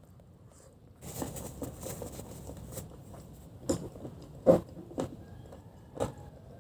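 Close-up eating sounds of crispy fried chicken being chewed, starting about a second in, with four sharp crunches, the loudest near the middle.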